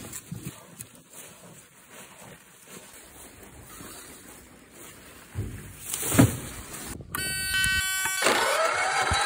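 Faint rustling handling noise with a knock about six seconds in. Near the end a two-wheel walking tractor's engine is started: a steady whirr for about a second, then louder noise as the engine catches.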